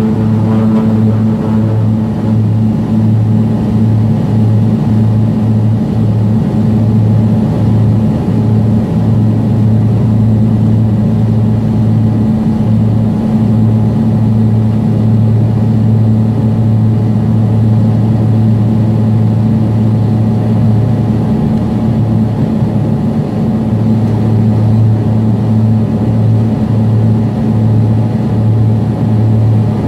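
Aircraft engines at takeoff power, heard from inside the passenger cabin: a loud, steady low hum with a deeper drone under it and a rushing noise above.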